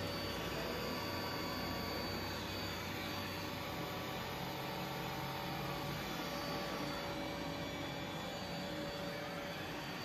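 Samsung Jet Bot AI+ robot vacuum running on carpet: the steady whir of its suction motor with a faint steady whine.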